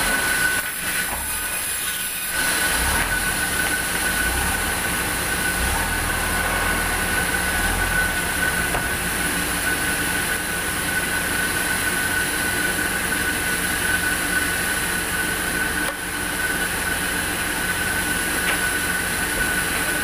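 Large sawmill band saw running and sawing timber: a steady whine from the blade over a dense rushing noise. It gets a little louder about two and a half seconds in.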